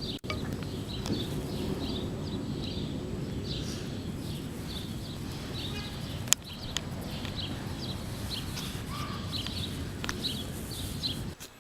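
Outdoor ambience: small birds chirping repeatedly over a steady low background rumble, with a single sharp click about six seconds in. It cuts off abruptly near the end.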